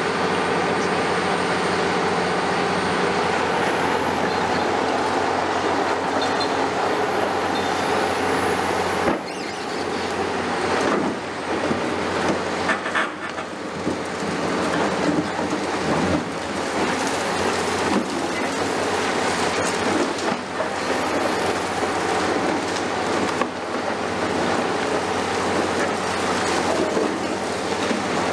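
Caterpillar 336E hydraulic excavator running steadily while its demolition attachment crunches and tears concrete, with irregular cracks and knocks of breaking concrete and falling debris from about nine seconds on.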